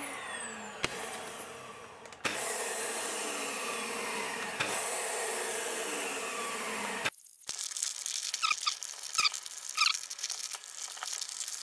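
Vacuum cleaner drawing the air out of a sealed plastic vacuum bag through its valve, compressing a carbon-fibre layup. It runs steadily and stops abruptly past the middle. Then the bag's plastic crinkles and squeaks as hands press it down.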